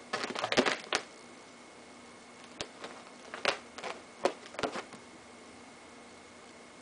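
Sharp popping and crackling: a quick cluster of pops in the first second, then about six single pops spaced out over the next couple of seconds.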